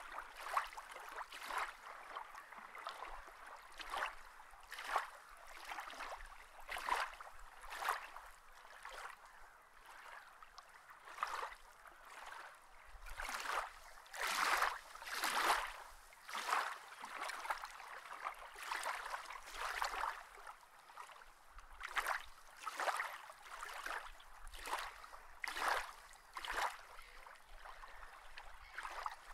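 Water sloshing and splashing in irregular surges about once a second.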